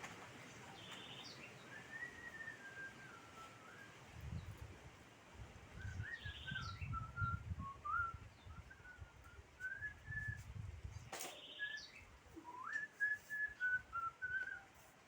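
A person whistling a slow wandering tune in three phrases, with a few short high chirps in between. Low knocking and rumbling handling noise runs under the middle phrase, and a sharp click comes about eleven seconds in.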